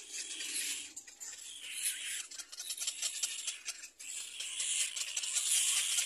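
Little black cormorant chicks begging for food at the nest: harsh, hissing calls in repeated bursts of about a second each, the loudest near the end.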